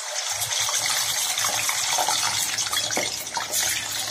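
Fish pieces frying in hot mustard oil in a kadhai: a steady sizzling hiss with scattered crackles and spits as the pieces go into the oil.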